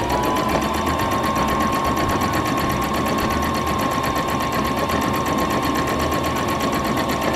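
Electric sewing machine running steadily at speed, sewing a straight-stitch seam: a steady motor whine with a rapid, even ticking of the needle strokes.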